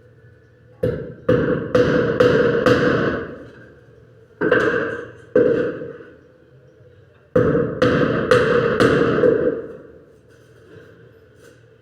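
Hammer striking wood in three bursts of about five, two and four blows, each blow ringing on briefly.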